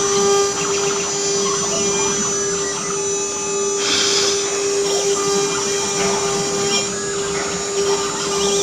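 Stone-cutting CNC router's spindle running with a steady whine as the bit works the stone, with a short burst of hiss about four seconds in.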